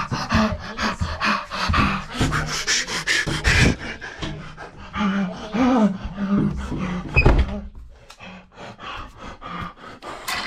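A man panting in quick breaths, several a second, with a few voiced gasps among them; the breathing eases off near the end.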